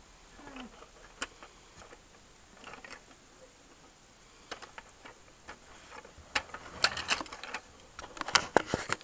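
Toy Ferris wheel being turned by hand: scattered plastic clicks and rattles, coming faster and louder in the last few seconds.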